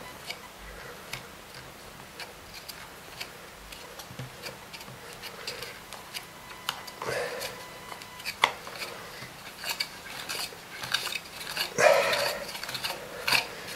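Scattered clicks, taps and short scrapes of hard plastic and metal as a Kirby vacuum motor's fan is gripped and turned by hand to work it off the shaft. The clicks come further apart at first and grow busier and louder near the end.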